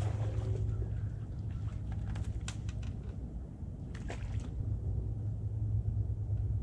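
A hooked smallmouth bass splashing at the shoreline as it is landed by hand, a few short splashes about two and four seconds in, over a steady low rumble.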